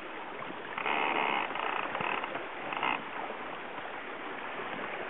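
Steady rush of water and wind aboard a small racing sailboat under gennaker. About a second in, a louder grating sound lasts roughly two seconds.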